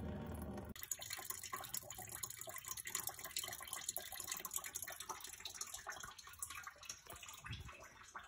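Coolant draining out of a 1988 Ford Mustang GT's cooling system, a faint steady trickle splashing into a plastic drain pan.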